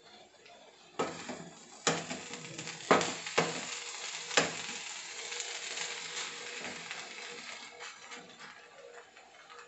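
Spatula stirring a thoran of banana and red cowpeas in a nonstick frying pan: about five sharp knocks of the spatula against the pan in the first half, over a sizzling, scraping hiss that slowly fades.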